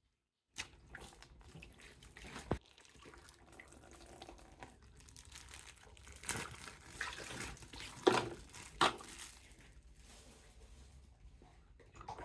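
Water sloshing and dripping in a basin as a plastic toy figure is rinsed, with a few short louder splashes around the middle.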